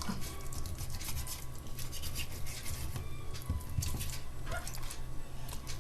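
Knife slicing raw chicken fillet on a cutting board: a run of short, repeated scraping strokes.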